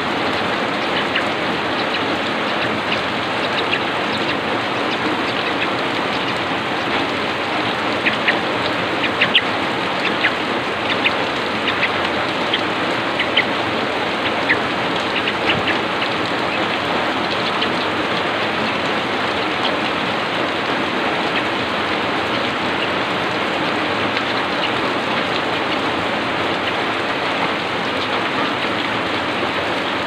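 Heavy rain falling steadily as an even hiss, with a scatter of sharper clicks for a few seconds about a third of the way in.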